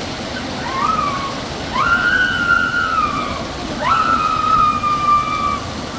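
Steady rush of splashing water, with people's voices crying out over it three times: a short rising cry, then two long held yells of about a second and a half each.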